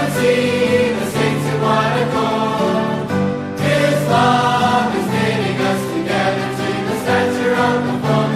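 Choir singing a hymn, with held notes that change about once a second and short breaths between phrases.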